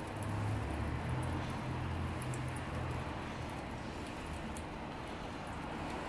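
Water trickling steadily through a Bunn commercial coffee brewer, running straight through the machine without stopping, which is the fault being shown. A low hum sounds over the first half and fades out about halfway through.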